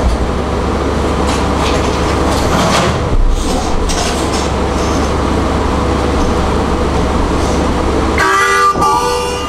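Steady rumble of a moving train that cuts off abruptly about eight seconds in. It gives way to a harmonica sounding held chords, with a short break in between.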